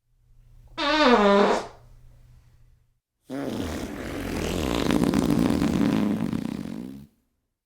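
Diarrhea sound effect: a low hum with a short fart about a second in whose pitch bends, then a long, noisy, spluttering fart lasting about four seconds.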